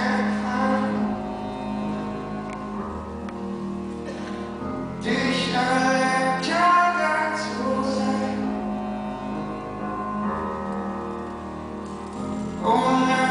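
Slow ballad played live, a voice singing over sustained instruments and a steady low note; it is softer for the first few seconds, swells about five seconds in, and swells again near the end.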